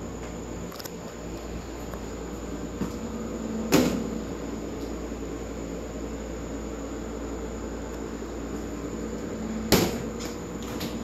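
Stainless-steel lid of a refrigerated sandwich prep table knocking sharply as it is lifted open, about four seconds in, and again as it is shut near the end, over a steady machine hum.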